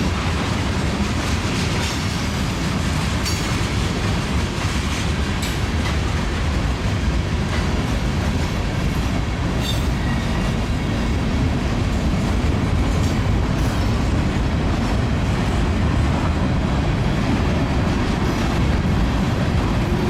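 Freight train's cars, including boxcars, rolling past: a steady rumble of steel wheels on rail, with occasional sharp clacks.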